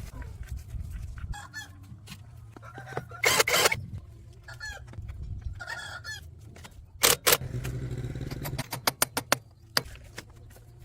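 Chickens clucking in short calls, with two loud noisy bursts and a quick run of sharp knocks near the end, over a low steady hum.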